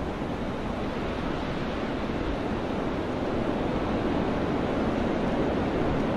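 Steady wind rushing, an even noise without gusts or strokes that slowly swells louder.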